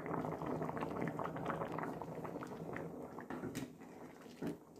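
Ghuguni (pea and potato curry in a thin gravy) simmering in a frying pan, a dense bubbling crackle that grows fainter toward the end, with a couple of sharper clicks from a steel spatula stirring it.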